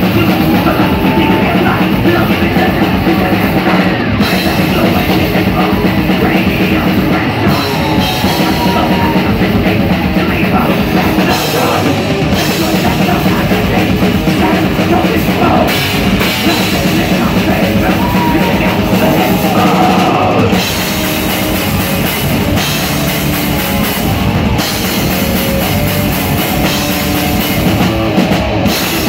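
Thrash metal band playing live at full volume: heavily distorted electric guitars, bass and fast, driving drums, recorded close to the stage.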